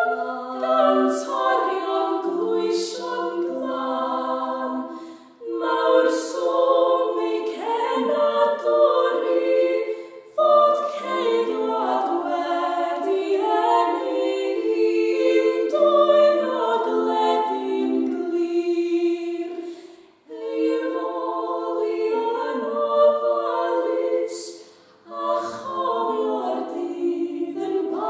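Three women's voices singing an unaccompanied plygain carol in harmony, with short breaks between phrases.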